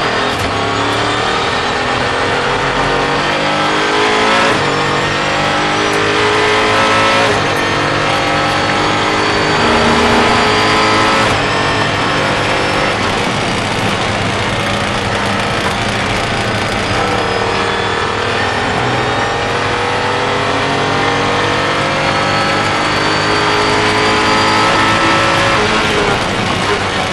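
A Mosler MT900 Super GT race car's Chevrolet small-block V8, heard from on board, pulling hard through the gears. Its pitch climbs and falls back at each upshift, three times in the first dozen seconds, then it holds at high revs for a long stretch.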